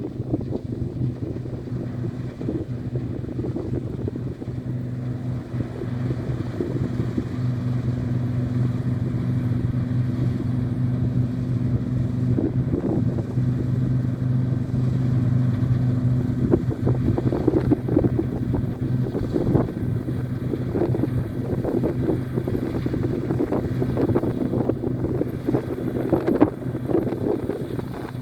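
New Holland TX36 combine harvester running steadily as it cuts wheat: a low, even engine drone, with irregular knocks and rattles growing more frequent in the second half.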